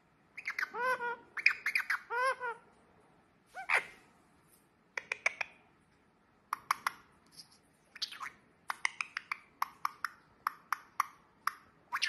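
Indian ringneck parakeet vocalising: a few wavering, warbled calls in the first couple of seconds, then a quick run of short, sharp chirps and clicks.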